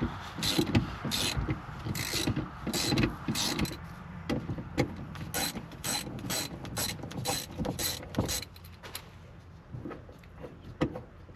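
Hand ratchet wrench clicking through repeated quick strokes as car seat bolts are backed out, the clicks becoming sparse about nine seconds in.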